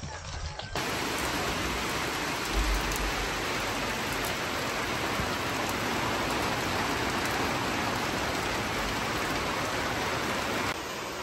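Heavy pouring rain, a steady hiss of downpour that starts abruptly about a second in.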